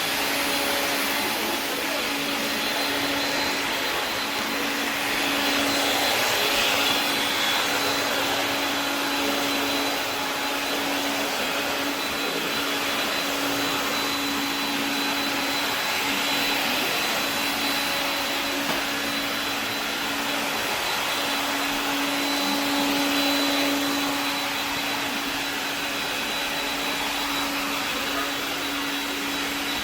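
AEG CR7 cordless stick vacuum cleaner, converted to a brushless motor driven by an ESC, running steadily. It gives a continuous rushing hum with a steady low tone and a faint high whine, swelling slightly a few times.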